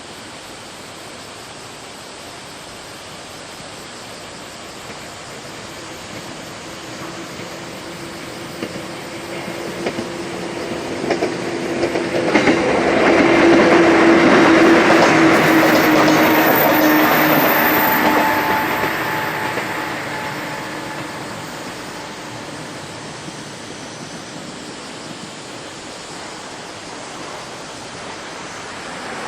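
A 103 series electric train passes: its sound builds up, with wheels clicking over the rail joints as it nears, is loudest for several seconds in the middle, then fades away.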